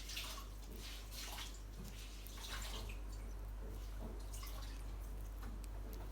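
Sulphur-crested cockatoo eating banana: irregular wet clicks and squelches as its beak works the soft fruit, thickest in the first few seconds, over a steady low electrical hum.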